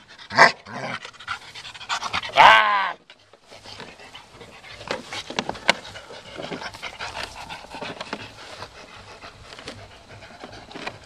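Black German Shepherd panting as it chews and tugs at a torn green plastic shell, the plastic crackling and clicking under its teeth. Near the start there is a loud sharp sound and a short loud call falling in pitch, then a long run of small crackles.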